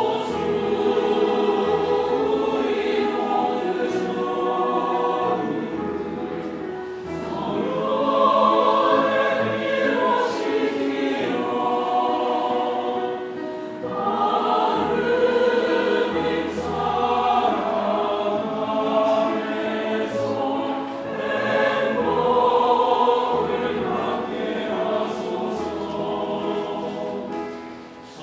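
Catholic church choir singing a Korean hymn, the phrase fading near the end.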